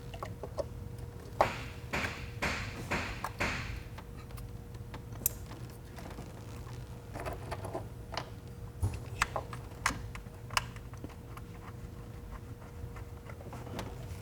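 Scattered clicks, taps and light clattering of hand tools and engine parts being handled while ignition coils are pulled and swapped between cylinders, busiest in the first few seconds, over a steady faint hum.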